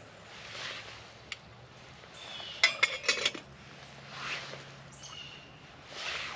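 A quick run of five or six sharp metallic clinks about two and a half seconds in: a utensil knocking against a small steel camp cook pot. Soft swishing rustles come before and after.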